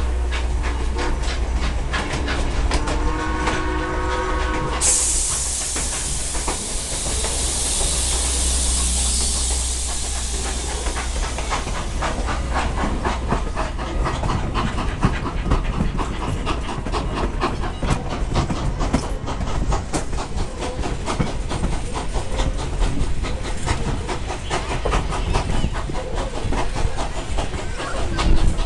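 On board a steam-hauled passenger train: a steam whistle sounds a chord for about two seconds, then a sudden burst of hissing steam fades away over several seconds. After that comes the steady clickety-clack of the coach's wheels over the rail joints as the train rolls along.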